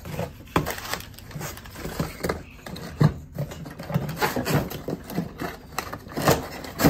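Hard plastic vacuum attachments clicking and knocking against each other and the cardboard box's inserts as they are handled, with cardboard scraping; irregular taps, the sharpest about three seconds in and just before the end.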